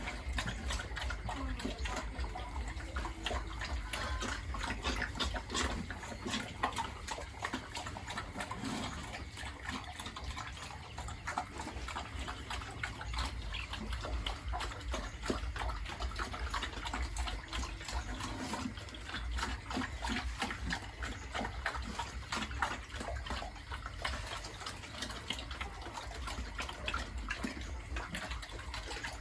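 Water running and splashing steadily in a pig pen, with pigs grunting a few times.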